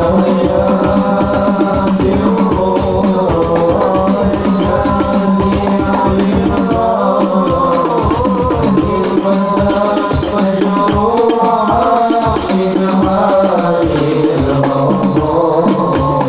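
Group of male voices singing an Arabic devotional song through microphones and a PA, over a steady, quick beat of hand-played frame drums.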